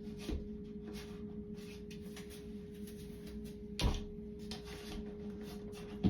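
A few sharp knocks and clicks of screws, anchors and a shelf being handled while hanging it on the wall, about half a second, four seconds and six seconds in, over a steady hum.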